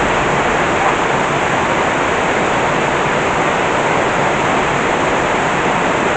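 Heavy rain pouring down in a steady, unbroken deluge.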